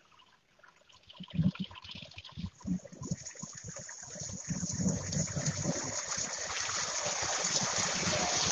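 Heavy rain pouring onto a waterlogged road, a hiss that builds steadily louder from about three seconds in. After a near-silent first second, irregular low thuds run under the hiss, the loudest about a second in.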